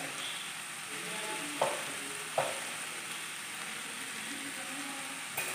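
Chicken pieces in masala sizzling quietly and steadily in a frying pan, with two light knocks about a second and a half and two and a half seconds in.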